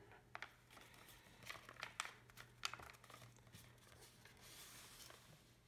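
Faint crinkling and rustling of a sheet of printer paper being folded and pressed into its creases by hand, in short scattered crackles, over a faint low hum.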